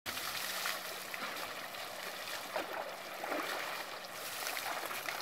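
Steady rush of shallow river water, with splashes of water thrown from a bucket onto an elephant.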